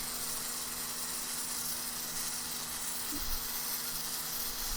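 Sun Joe SPX3000 electric pressure washer running, its motor and pump humming steadily under the hiss of water spray from the 0-degree nozzle blasting concrete.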